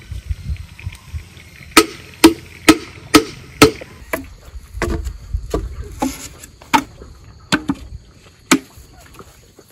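Bamboo knocking on bamboo: five sharp, evenly spaced blows about half a second apart as a bamboo stake is pounded into the ground, then scattered single knocks as bamboo poles are set across the stakes.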